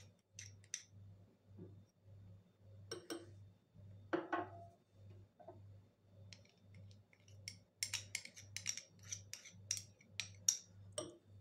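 Metal teaspoons clicking and scraping against glass bowls as cream is scooped from a small glass cup and tapped off into melted chocolate: scattered clinks, then a quick run of them near the end.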